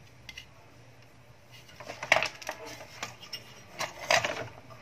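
Knocks and clatter of a circuit board, tools and wires being handled and set down on a hard workbench, in two busier spells about two and four seconds in, over a faint steady low hum.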